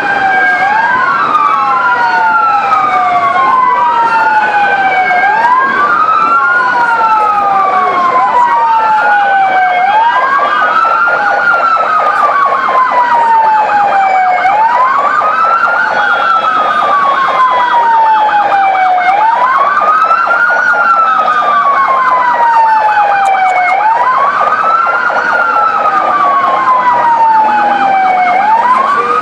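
Several emergency vehicle sirens sounding together, their wails overlapping as they rise and fall every few seconds. A fast warbling siren joins in about eight seconds in and drops out near the end.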